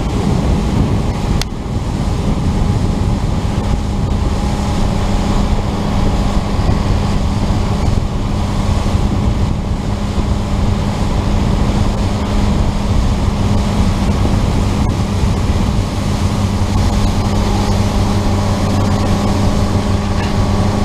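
Motorboat engine running steadily under way, a constant hum, with wind on the microphone and water rushing past the hull.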